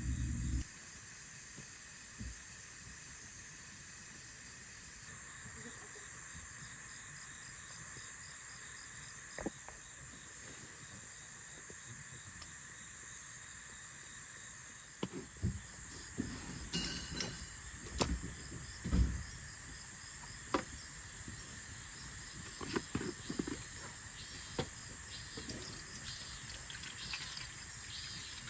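Insects chirping in a steady, high chorus. From about halfway through, scattered light knocks and clicks sound over it.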